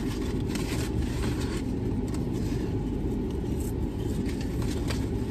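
Steady low rumble of a car idling, heard inside the cabin, with a few faint paper rustles from a fry carton and paper bag being handled.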